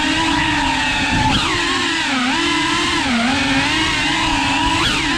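Small FPV drone's motors and propellers buzzing, the pitch dipping and rising with throttle, with two quick sharp upward swoops, about a second and a half in and near the end.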